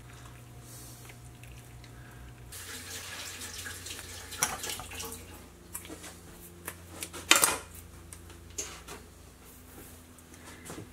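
Running water that starts about two and a half seconds in, with scattered clinks and knocks, the loudest about seven seconds in, over a steady low hum.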